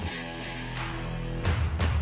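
Rock music with guitar, with a few sharp hits in its beat.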